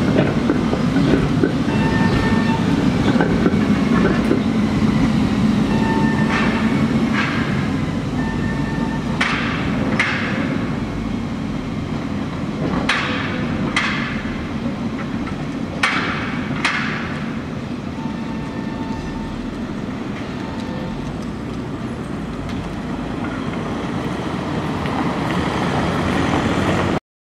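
Tatra T3 tram running over the tracks and points of a junction: a steady rumble of wheels and motors, heaviest at first, then the wheels knock over the rail joints and switches in three pairs of sharp clacks between about nine and seventeen seconds in.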